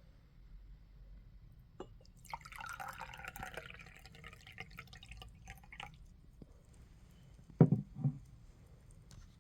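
Liquid splashing and dripping for a couple of seconds, starting about two seconds in, then two low thumps near the end.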